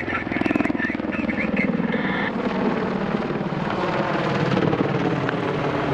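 AH-64 Apache attack helicopter flying a display, its rotor beating rapidly over the engine noise. The engine pitch falls over the first few seconds.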